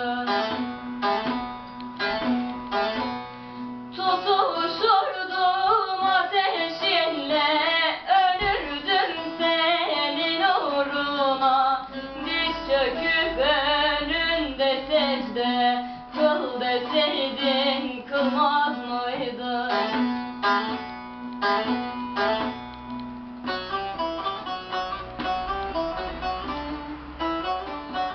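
Music: a plucked string instrument plays a busy melody over a steady low drone, with singing.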